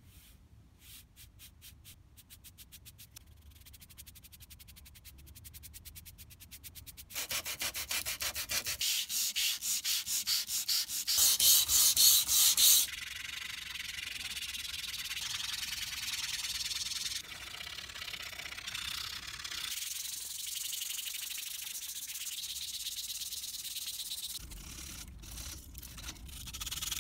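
Back-and-forth rubbing on a bare wooden tabletop: faint strokes of a wet brush at first, then dry, stainable wood filler being worked into the grain by hand with quick rhythmic strokes. The strokes are loudest about eleven to thirteen seconds in, then settle into a steady rubbing hiss.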